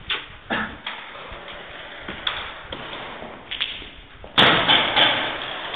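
Paintball markers firing: scattered single pops over the first few seconds, then a loud rapid string of shots about four and a half seconds in, echoing in a large empty hall.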